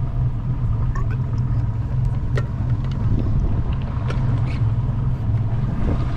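Jet boat engine running steadily, a constant low hum with no change in pitch.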